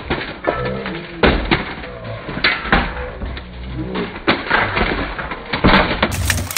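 Armoured fighters' weapons striking steel plate armour and shields in a buhurt melee: a string of sharp clanks and thuds, with voices shouting between the blows.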